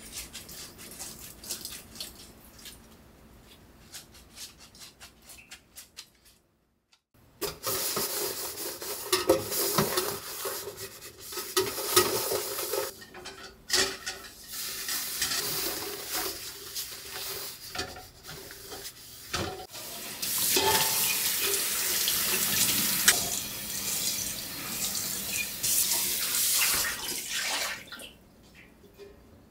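Tap water running into a stainless steel sink while a stainless steel pot, its lid and a steamer insert are scrubbed and rinsed, with metal knocks and clanks against the sink. The first few seconds hold only faint handling clicks; the water starts after a brief silence about seven seconds in and stops near the end.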